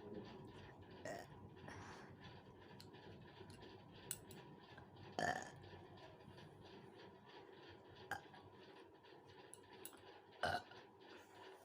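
A young woman burping: a short, smaller burp about a second in, then two louder short burps about five seconds apart.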